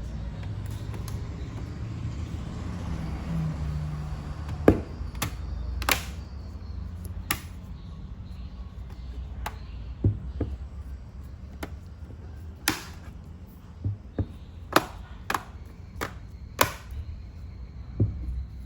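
Laptop parts being handled during disassembly or reassembly: a series of irregular sharp clicks and taps over a low steady hum.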